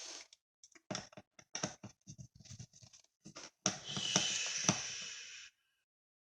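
Laptop hard drive and its bracket being handled and fitted into the drive bay: a run of small clicks and taps, then a scraping sound lasting about two seconds from a little past the middle.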